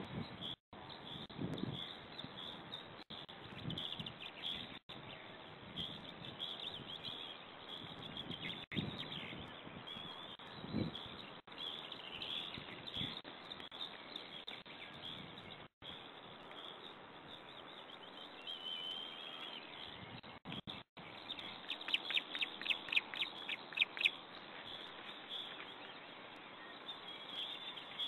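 Outdoor birdsong of short, high chirps, with a quick run of sharp chirps about three quarters of the way through that is the loudest part. Low rustling and soft knocks come and go in the first half.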